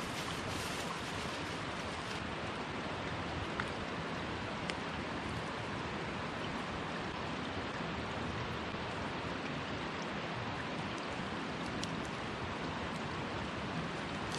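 Mountain stream water rushing steadily, with a few faint clicks.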